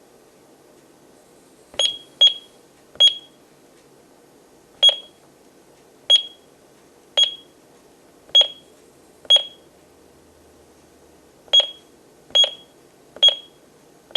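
Honeywell Lynx Plus alarm keypad beeping once per key press: about a dozen short, high beeps at uneven spacing, with pauses of up to two seconds between some. Keyed in this slowly and off the beat, the panel does not accept the code change.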